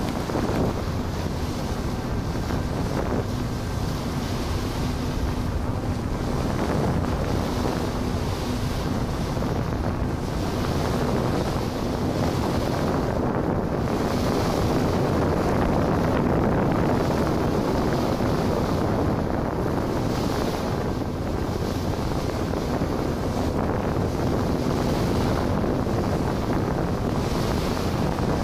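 Wind on the microphone and water rushing past a harbour ferry under way, with a faint steady engine hum underneath.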